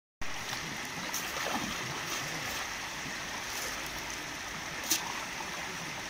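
Steady rush of a fast-flowing, flooded river, with a few faint short clicks over it; the sound drops out for a moment at the very start.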